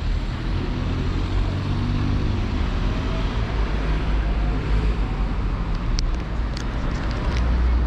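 Street traffic noise: a steady hum of passing and idling motor vehicles, with a few short sharp clicks in the later part.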